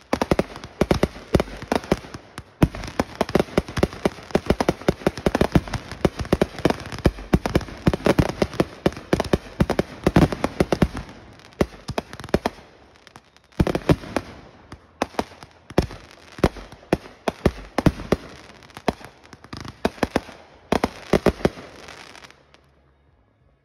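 Consumer firework cake firing in a rapid barrage: many bangs a second of shots and bursting shells with crackle. After a short pause about thirteen seconds in, the shots come further apart and stop shortly before the end.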